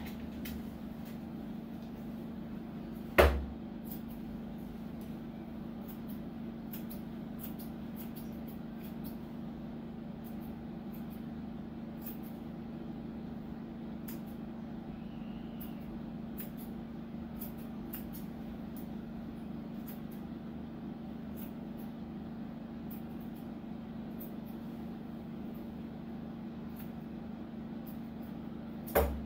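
Grooming scissors snipping irregularly at the fur of a small dog's paw, over a steady low hum. A loud knock comes about three seconds in and another right at the end.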